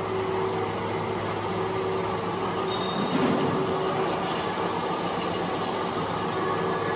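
Rebuilt Thyssen industrial helical gearbox running on its test stand: a steady mechanical hum with several constant tones, running smoothly.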